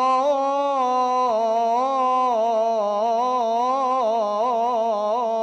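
A man singing solo and unaccompanied, holding one long melismatic note of an Arabic mawwal. The pitch wavers in quick ornamental turns and settles a little lower after about a second.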